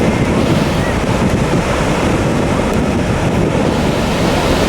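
Ocean surf washing in at the shoreline, a steady rush of breaking waves, with wind buffeting the microphone.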